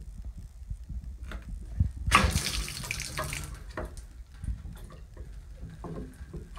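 Shower water running and splashing, with a loud rush of spraying water about two seconds in that lasts over a second. The new shower head is not flowing properly: an old washer stuck in the connection is blocking the water.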